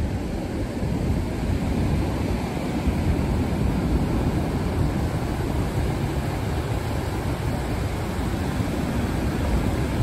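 Ocean surf mixed with wind buffeting the phone's microphone, a steady low rumble that does not let up.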